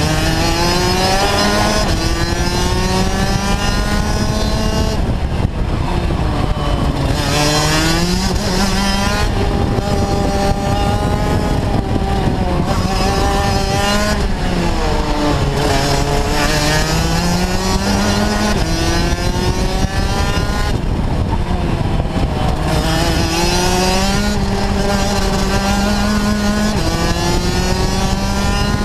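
Rotax Max DD2 kart's 125cc two-stroke engine at racing speed, heard from the kart itself: the note climbs over a few seconds, then drops back, again and again, as it accelerates out of the corners and comes off the throttle into them.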